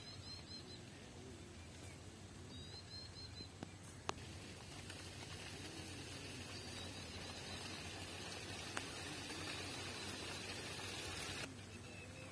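Faint outdoor ambience: small birds give two short runs of quick high chirps, one at the start and one about three seconds in, over a steady low hum. A high hiss swells through the second half and cuts off abruptly near the end, with a couple of soft ticks along the way.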